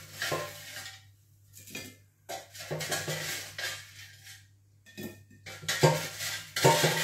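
Utensil scraping and knocking against the inside of an air fryer basket while air-fried chips tumble out onto a ceramic plate: irregular clatters and scrapes, the loudest near the end.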